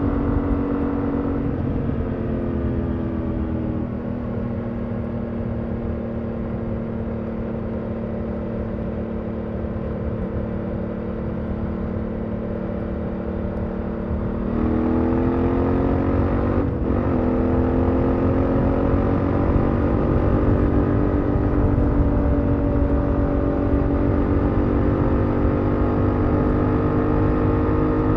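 BMW F 900 XR's 895 cc parallel-twin engine running through its stock exhaust, heard from the rider's seat on the move. The note falls as the throttle is eased about a second and a half in, then holds a steady cruise. About 14 seconds in it rises and grows louder as the bike accelerates, with a brief break in the note about 17 seconds in, then holds steady at higher revs.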